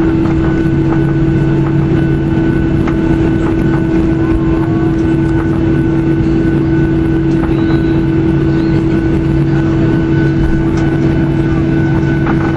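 Steady cabin noise inside a Boeing 737-800 taxiing after landing, with its CFM56-7B engines at idle: a constant low rumble with a steady two-tone hum.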